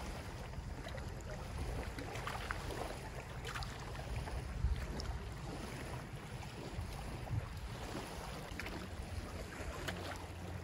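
Wind buffeting the microphone over small waves lapping on a lake, a steady low rumble with a few faint ticks.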